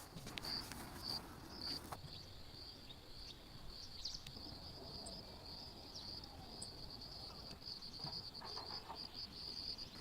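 Crickets chirping in a steady, fast-pulsing high trill, with a few faint clicks near the start and near the end.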